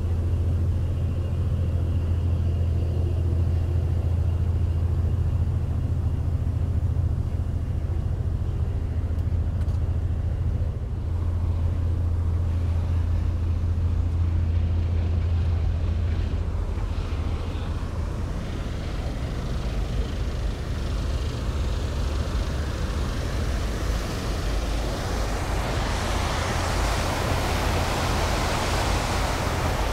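Steady low drone of the ferry's machinery heard on the open deck. It weakens about halfway through and gives way near the end to a rising rush of water from the churning propeller wake below the stern.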